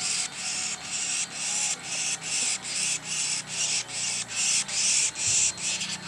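Insects buzzing outdoors in a steady pulsing rhythm, about three rasping pulses a second.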